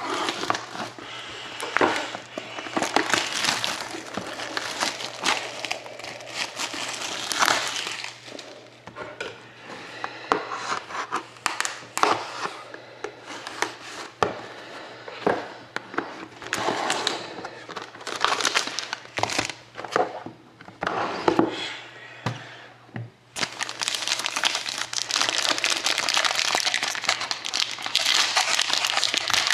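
Plastic wrapping crinkling and tearing in irregular crackly handfuls as a sealed trading-card box is unwrapped by hand. Near the end the crinkling turns continuous and denser.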